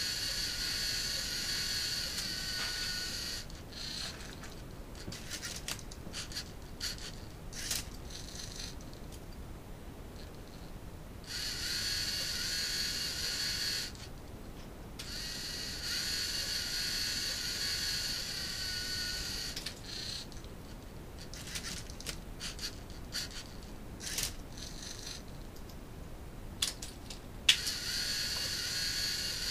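LEGO Mindstorms NXT Rubik's-cube-solving robot at work: its servo motors and plastic gearing whir with a high whine in spells of a few seconds as the cube is turned, with short whirs and plastic clicks between them. A sharp clack comes a couple of seconds before the end.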